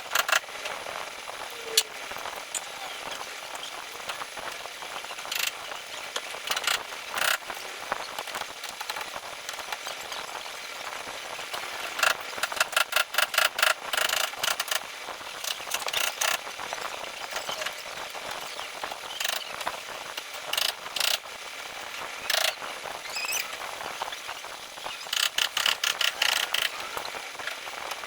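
Hand tools and fasteners clicking and knocking during reassembly of car body parts: scattered single clicks, with two runs of rapid clicking, about halfway through and near the end.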